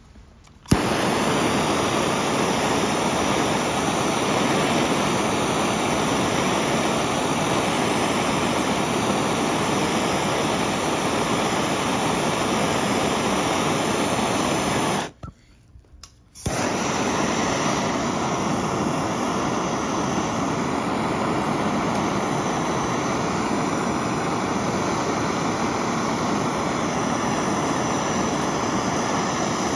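Handheld gas torch flame running with a steady hiss as it heats a fluxed, threaded copper fitting for soldering. It starts a moment in, cuts out for about a second around the middle, then runs on.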